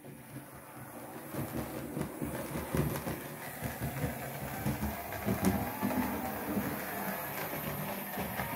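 OO gauge Oxford Rail Adams Radial 4-4-2 tank locomotive model running along the layout track: its small electric motor whirring and the wheels clicking over rail joints and points. The sound rises in the first second or so.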